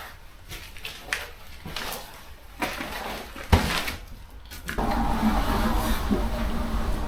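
Scattered knocks and clatter of bricks and masonry being worked loose, with one sharp knock about three and a half seconds in. About five seconds in, a steady rushing noise starts and runs on.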